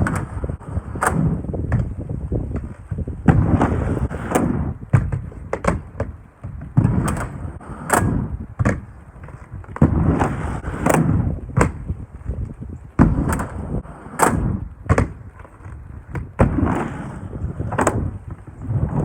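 Inline skates rolling on a quarter pipe, with repeated sharp clacks and knocks as the 3D-printed PLA sole frames grind on PVC coping and the skates land, over a low rolling rumble of the wheels.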